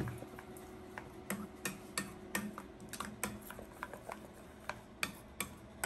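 Faint, irregular crackles and pops of oil heating in a stainless-steel frying pan, a few sharp clicks a second, over a faint steady hum.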